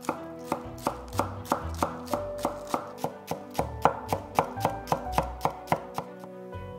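Chef's knife slicing spring onions on an olive-wood cutting board: a steady run of sharp chops on the wood, about three a second, quickening to four or five a second midway, then stopping about a second before the end.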